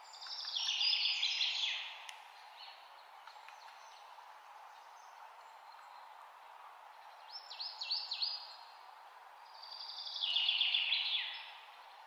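A songbird singing: a quick trill of repeated notes falling in pitch, sung twice about nine seconds apart, with a few separate short notes in between, over a steady low hiss.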